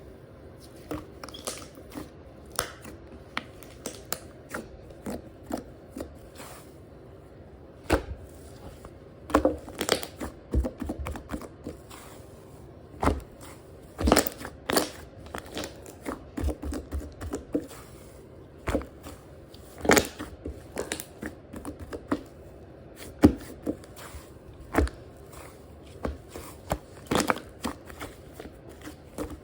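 Hands squishing, pressing and stretching slime, making irregular sticky clicks, pops and crackles.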